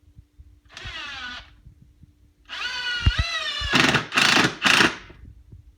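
Cordless screw gun (drill/driver) driving a screw into wood. A short burst of the motor whine falls in pitch about a second in. A longer run follows, with three louder noisy bursts near the end.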